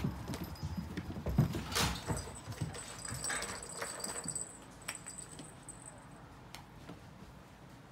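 Cats running and leaping across the floor: a quick flurry of soft paw thumps and knocks for the first four seconds or so, then settling to quiet room sound.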